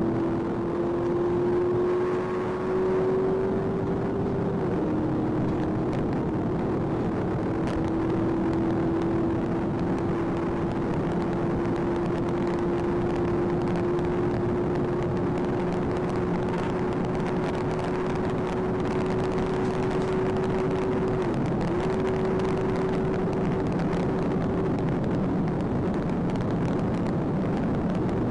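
Police cruiser's engine pulling hard at high speed, heard from inside the cabin over heavy road and wind noise. Its steady pitch creeps upward, drops sharply about five seconds in as it shifts up, and dips briefly near the end.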